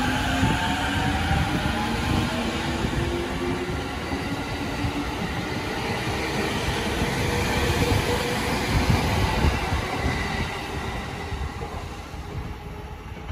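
JR Musashino Line electric commuter train pulling away from the station. Its traction motors whine and rise in pitch as it accelerates, over a steady rumble of wheels on the rails. The sound fades near the end as the last cars clear.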